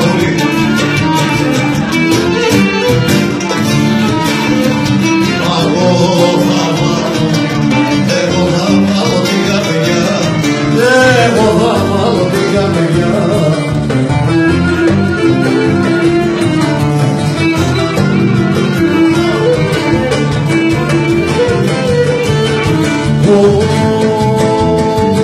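Cretan lyra and laouto playing a Cretan song, with a man singing into a microphone.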